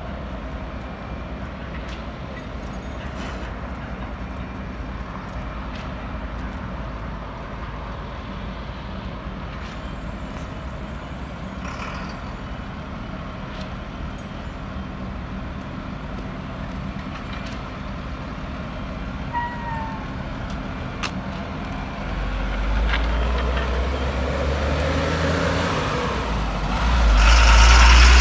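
A motor vehicle or machine engine running steadily with a low hum and a few faint clicks. It grows louder in the last several seconds.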